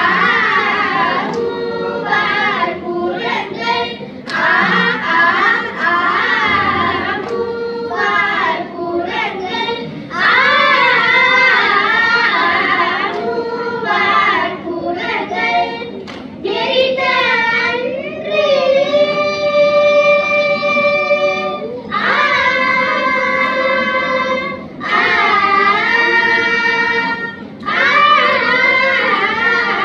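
A group of children singing a Tamil devotional hymn together in unison, in ornamented lines with short breaks for breath, over a steady drone. About two-thirds of the way through they hold one long note.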